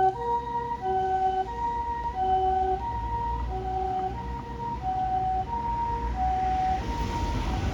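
Japanese ambulance two-tone siren from a Patlite SAP-500 siren amplifier, alternating a higher and a lower note about every two-thirds of a second and growing fainter as it goes, over a low rumble of traffic. A hiss of road noise builds near the end.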